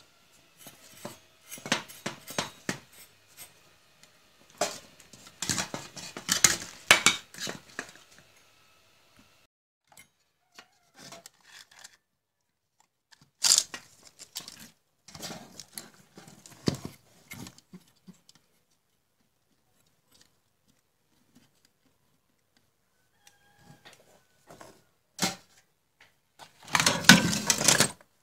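A computer power supply's circuit board and its sheet-metal case being handled: irregular clicks, knocks, scrapes and rustles, in clusters with quiet gaps. The loudest clatter comes near the end.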